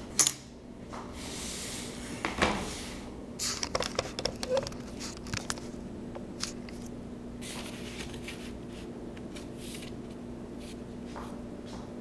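Cutting sounds: a sharp click just after the start, a rushing scrape around two seconds in, then a quick run of clicks and snips between about three and a half and five and a half seconds, thinning to scattered ticks.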